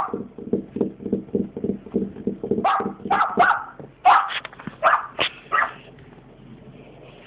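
A young boxer dog barking and yipping: a quick string of about seven short, sharp barks in the middle. Before them come fast, even low pulses, several a second.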